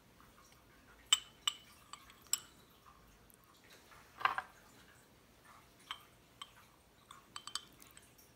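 Metal spoon clinking against small glass jars and a stainless steel pot while bacon jam is spooned into the jars. A few sharp clinks come about a second in, a louder, longer knock just past four seconds, and a quick cluster of clinks near the end.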